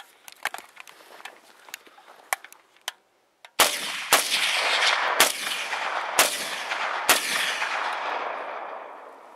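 A few light clicks, then five rifle shots from a 7.62x39 VZ-58, about a second apart, each followed by a long rolling echo that fades away near the end.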